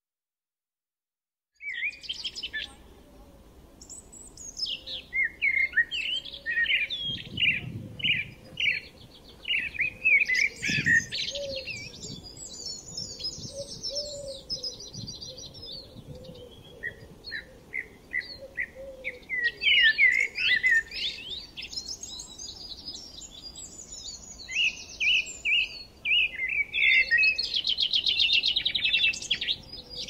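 Several birds singing and chirping together, a dense mix of quick chirps, trills and rapid repeated notes. It starts suddenly about two seconds in after near silence.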